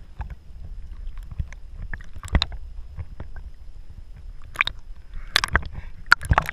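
Lake water sloshing and lapping against a camera held half-submerged at the surface, with a low rumble and irregular sharp splashes from a swimming dog nearby. The splashes come thicker near the end.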